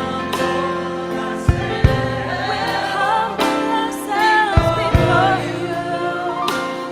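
A choir singing with instrumental backing, a few low beats landing through it.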